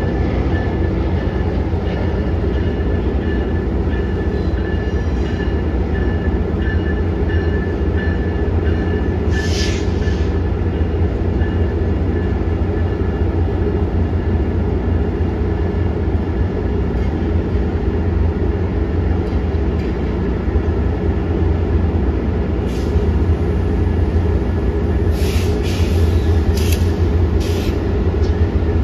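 Diesel passenger locomotive running steadily: a constant heavy low rumble with a steady whine over it. One short sharp hiss comes about ten seconds in, and several more come near the end.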